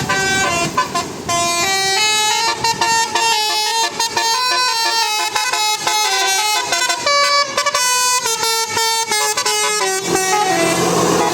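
Bus 'telolet' horn, a multi-tone musical air horn, playing a rapid melody of short stepped notes. About ten seconds in it stops and gives way to steady vehicle noise.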